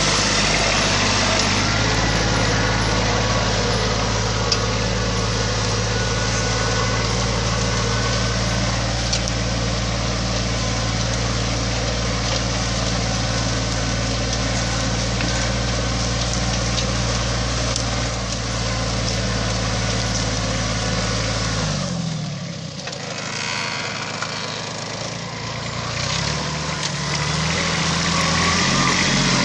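Kubota Aste A-195 compact tractor's diesel engine running steadily under load while pulling a two-furrow plough through the soil. About three quarters of the way through its note drops and goes quieter, then rises again near the end.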